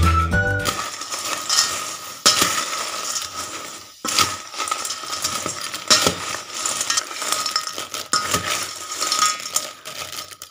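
A metal spoon stirring and tossing seasoned crackers in a stainless steel bowl: irregular clinks and scrapes of metal on metal with the crisp clatter of the crackers, after the tail of background music fades out in the first second.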